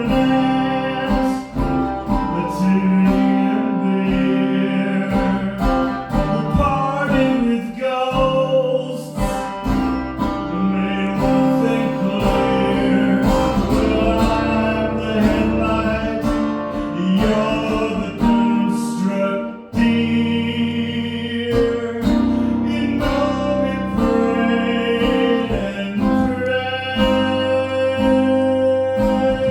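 Live music: guitar played through a song with a voice singing over it.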